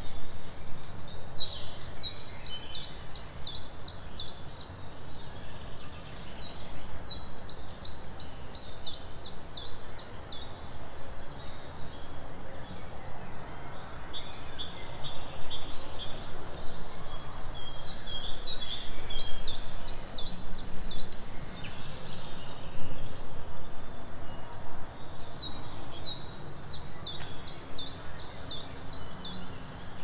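Forest songbirds singing: four phrases of quick, high, repeated notes, each lasting a few seconds with short pauses between, over a steady low background noise.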